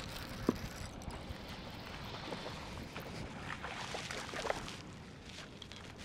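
Hooked bass splashing at the surface beside a boat a few times near the middle, over steady wind and choppy water against the hull, with one sharp click about half a second in.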